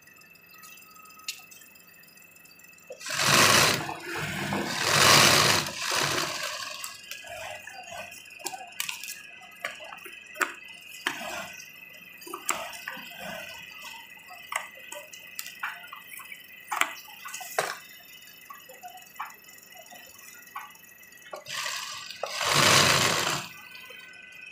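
Black sewing machine stitching a denim jeans seam in short runs: about three seconds in, again about five seconds in, and near the end. Between the runs come quick clicks and snips of large tailor's scissors trimming the denim, and the fabric being handled.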